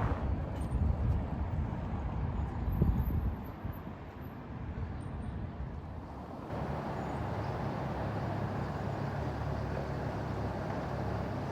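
Outdoor street ambience: the low rumble of road traffic going by. The background changes abruptly a little over halfway through.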